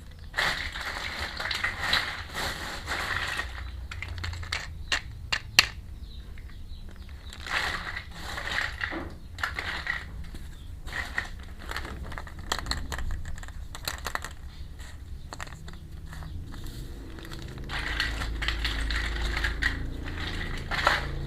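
Plastic packaging crinkling and small plastic toy pieces clicking as they are handled while a miniature toy kitchen set is unboxed, with stretches of rustle broken by sharp clicks.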